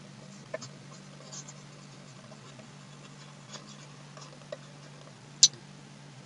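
Faint scratching and scattered light clicks of handwriting with a pointing device on a computer, with one sharp click about five and a half seconds in, over a steady low hum.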